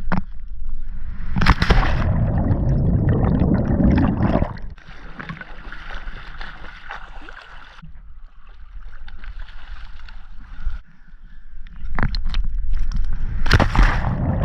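Water sloshing and splashing close to the microphone, louder for a few seconds after a knock about a second and a half in, and again near the end, with sharp knocks in between.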